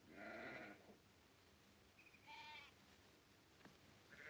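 Sheep bleating faintly, twice: one bleat at the start and a second, quavering one about two seconds in.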